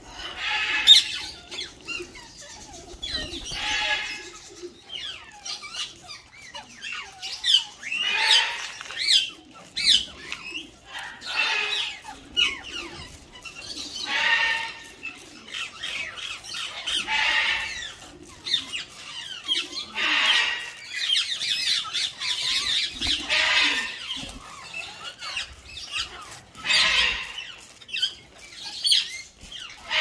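Ringneck parakeets squawking over and over, short shrill calls coming every second or two.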